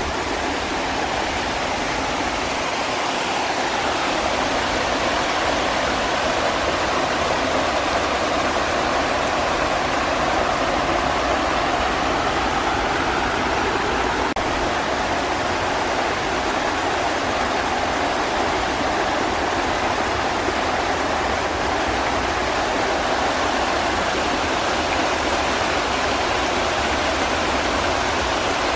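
Water pouring over a stone ledge and churning into white foam: a steady, loud rush.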